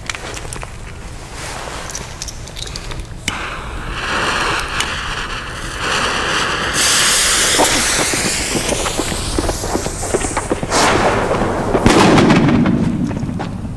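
A nitrate firecracker (salute) going off with a single sharp, loud bang about eleven seconds in, after a stretch of handling and hissing noise while it is set down and lit. Wind rumbles on the microphone after the bang.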